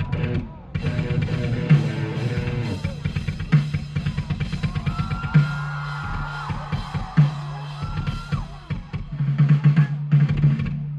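Rock band playing live, with the drum kit out front: fast, steady bass drum and snare hits over low bass notes. A held, higher melody line comes in around the middle.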